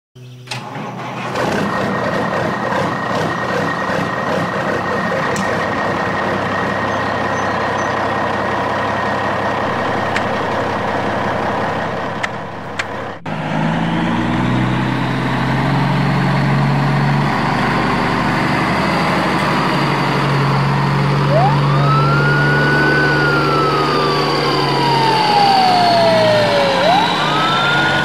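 A vehicle engine runs steadily, then changes abruptly about halfway to a lower, humming engine sound. In the second half a wailing siren rises quickly, slides slowly down, and rises again near the end.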